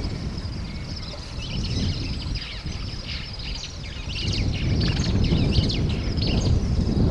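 Birds chirping in a rapid, dense flurry of short high calls, over a low rumbling noise that grows louder about four seconds in.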